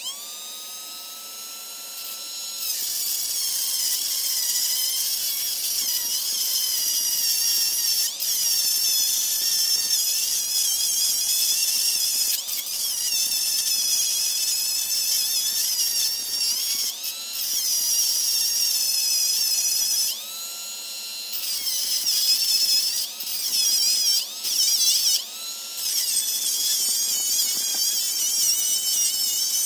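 Handheld electric power tool working steel. Its motor spins up with a whine, then gives a high grinding hiss while it bears on the metal, dropping back to the free-running whine a few times in the second half.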